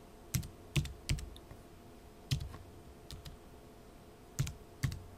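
Computer keyboard keystrokes: about seven separate key presses, typed slowly with uneven pauses between them.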